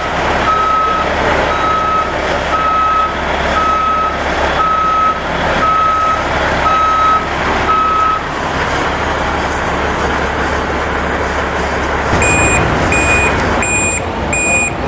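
Fire engines' reversing alarms beeping over the steady low running of a heavy truck engine. One alarm beeps at one pitch about once a second and stops about two-thirds of the way through. Near the end a second, higher-pitched alarm starts beeping a little faster.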